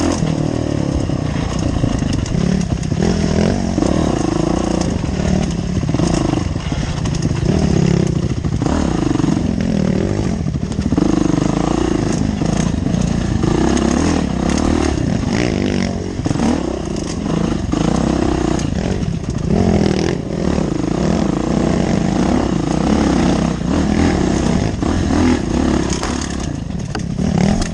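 Dirt bike engine heard from on board the rider's own bike, revving up and down continuously as it is ridden along a rough wooded trail, with rattling and clatter from the bike over the bumps.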